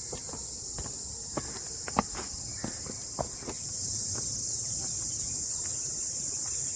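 Cicadas singing in chorus: a steady, high-pitched drone that grows louder about four seconds in, with scattered soft clicks and taps beneath it.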